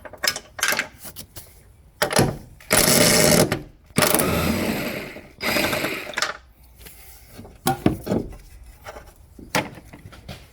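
A power tool undoing the last mounting bolt of a front shock absorber, running in several bursts, one of them steady for about a second and a later one fading off as the bolt comes free. Scattered metallic clicks and knocks follow.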